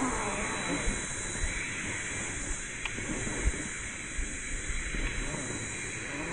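A steady outdoor hiss with a few faint knocks and soft low thumps scattered through it.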